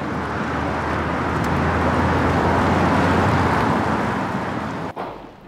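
A convoy of camouflaged police SUVs, vans and a truck driving past: engine drone and tyre noise that swell to a peak about three seconds in, ease off, and cut off suddenly near the end.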